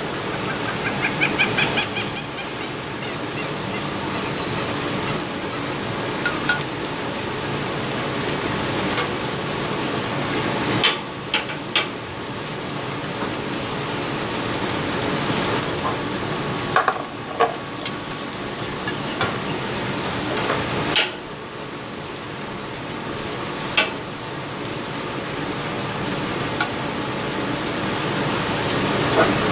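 Pork chops frying on a flat griddle top, a steady sizzle, with a metal flipper now and then clicking and scraping against the griddle and its wire cooling rack.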